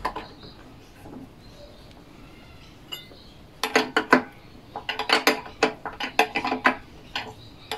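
A small steel spanner clinking and rattling against the metal of a Victa two-stroke lawnmower engine as the decompression valve is worked on: a few sharp clinks about three and a half seconds in, then a quick run of them for about two seconds.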